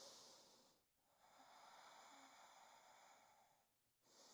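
Near silence with faint, slow breathing through the nose: a long drawn breath of about three seconds, with brief pauses around it.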